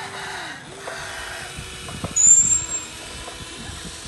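Small electric motors and plastic gearboxes of a Huina remote-control excavator whining as the boom and bucket move, the whine stopping and restarting as the motions change, with scattered clicks. About two seconds in comes a brief, loud, high-pitched squeal.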